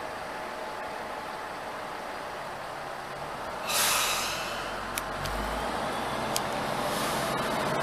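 Tenryu Hamanako Railway TH2100 diesel railcar releasing its air brakes with a sharp hiss about four seconds in, then its diesel engine note rising as it starts to pull away. Two short clicks and a second, weaker hiss follow.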